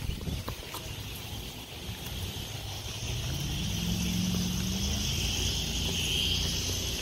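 A motor hums steadily outdoors, growing louder from about three seconds in, with a faint hiss above it.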